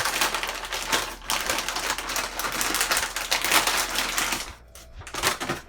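Packaging around a graphics card being handled and opened: a dense, rapid crackling rustle that stops about four and a half seconds in.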